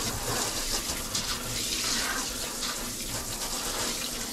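Kitchen faucet's pull-down sprayer running steadily, with water spraying onto a whole lake trout and splashing in a stainless steel sink.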